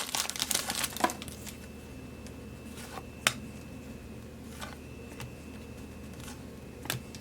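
Foil trading-card pack wrapper crinkling for about the first second, then cards being handled, with a few short soft clicks and taps.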